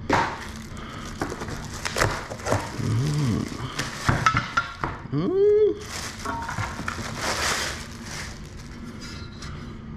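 Metal parts and hardware of a rack cable system clinking and knocking as they are handled and unpacked, with a short rising-and-falling squeal about five seconds in.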